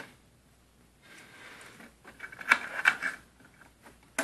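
Handling noise from a cooling fan assembly and its wires being tucked and pressed back into a light fixture: soft rustling with a cluster of light clicks and scrapes about two and a half to three seconds in, and one sharp click near the end.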